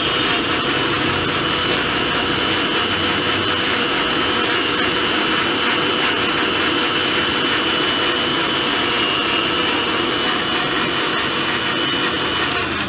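Electric countertop blender (mixer-grinder) running at a steady high speed, its motor whining as it churns a jar of banana milkshake.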